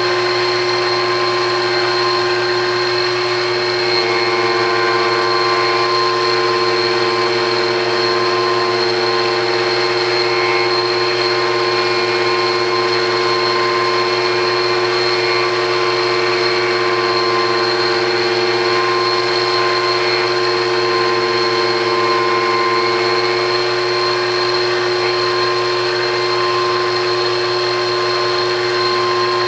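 Horizontal cutting frame on a rose engine lathe running, its cutter spinning steadily as it cuts a pattern into the end of a wooden workpiece. The sound is a steady mechanical whine with several held tones.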